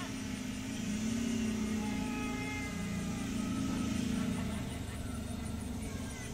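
Ford Explorer SUV engine running as it drives past, a steady drone that grows louder for a few seconds and then eases off.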